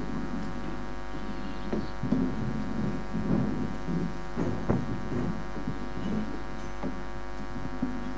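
Steady electrical mains hum from the stage sound system, with scattered soft bumps and rustling from the open microphones as people sit down and handle things at the table.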